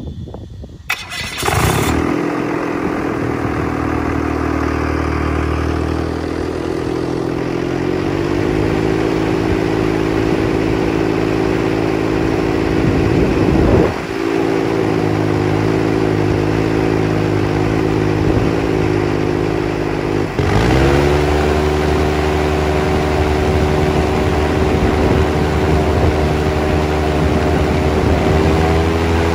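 Viking 90 aircraft engine on a powered-parachute cart starting up about a second in, then running hard and driving its propeller, set to 20 degrees of pitch, against a tether in a static thrust test. Its pitch shifts a few seconds in and steps up higher and louder about two-thirds of the way through.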